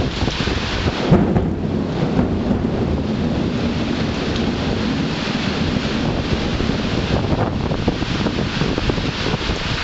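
Heavy rain falling steadily through a thunderstorm, with a thunderclap about a second in that rumbles on for a couple of seconds.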